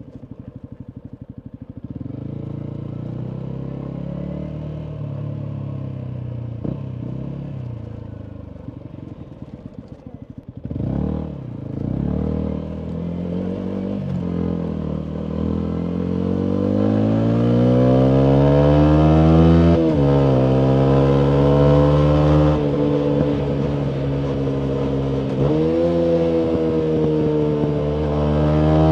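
2019 Yamaha MT125 with a full Akrapovic exhaust, its 125 cc single-cylinder engine running at low revs for about ten seconds, with a quick throttle blip around then. The bike then accelerates away, its exhaust note rising in pitch and getting louder, falling back at each gear change.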